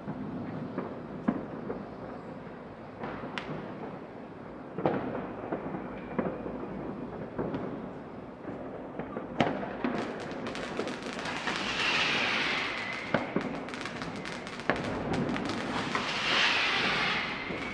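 New Year's Eve fireworks: scattered sharp bangs at first, then about halfway through a dense run of firecracker crackling sets in, with two hissing swells rising over it.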